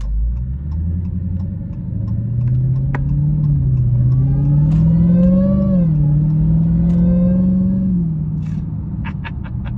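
2017 Dodge Charger SRT Hellcat's supercharged 6.2-litre Hemi V8 accelerating under throttle, heard from inside the cabin, with faint supercharger whine rising with it. The engine note climbs, dips at upshifts about three and a half and six seconds in, holds, then falls back near the end as the throttle eases.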